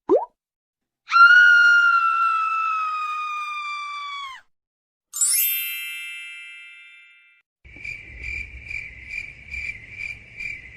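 A run of separate editing sound effects: a brief rising blip, then a held whistle-like tone that slowly sinks in pitch and fades over about three seconds, then a bright chime that sweeps down and rings out, and near the end about three seconds of a pulsing cricket-like chirp, a little under three pulses a second.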